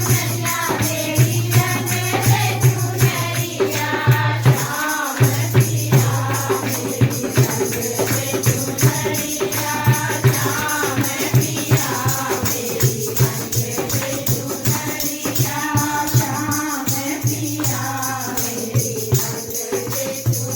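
Hindi devotional bhajan music: voices singing a melody over jingling hand percussion that keeps a steady beat, with a steady low hum underneath.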